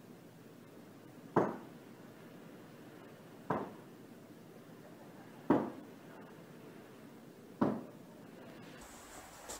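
Four sharp knocks, evenly spaced about two seconds apart.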